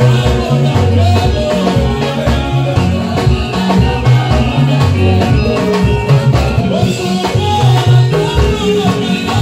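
Live praise-and-worship music: a group of singers singing together over a band with electric guitar, a moving bass line and steady percussion.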